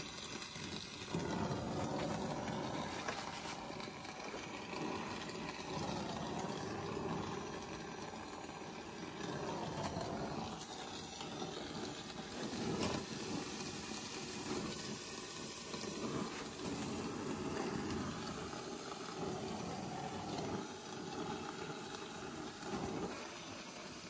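Oxy-acetylene brazing torch flame hissing steadily while a copper refrigerant line joint is heated and brazed.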